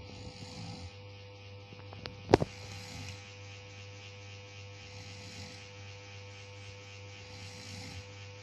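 A sleeping person snoring, breaths recurring about every two and a half seconds over a steady electrical hum, with one sharp knock about two seconds in.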